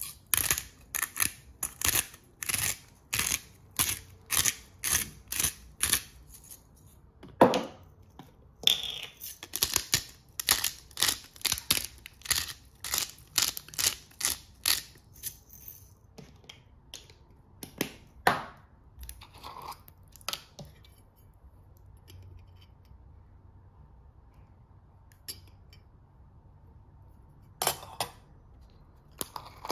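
Hand-twisted salt and pepper grinders grinding over a bowl of cabbage: a run of crisp, rasping strokes about two a second, a pause, then a second run, each twist of the grinder head one stroke.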